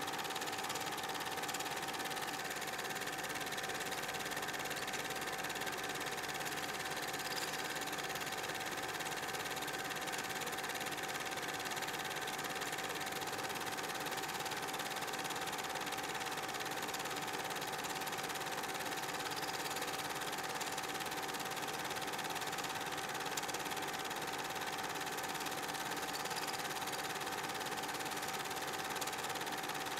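Super 8 film projector running, a steady mechanical whir with a constant hum-like tone.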